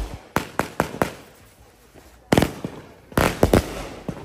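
Consumer firework cakes firing shots that burst overhead in a string of sharp bangs: a quick run of four or five in the first second, a short lull, then a loud bang about two seconds in and another cluster of bangs a second later.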